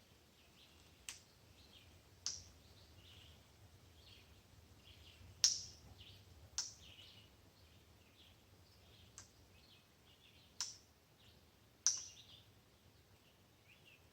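About seven sharp knocks, spaced irregularly a second or more apart, over faint bird chirps in the woods.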